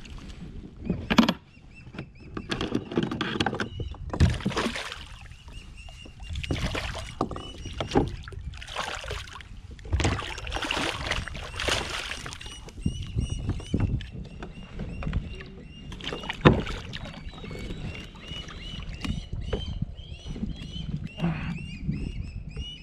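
Water splashing and sloshing in irregular bursts as a hooked goliath grouper thrashes at the surface beside a kayak and is hauled out of the water. A string of faint short high chirps runs underneath from about a quarter of the way in.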